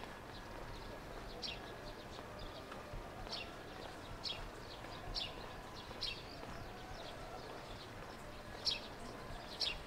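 Bird chirping: short, sharp, high chirps repeated at irregular intervals, about one a second, over faint steady background noise.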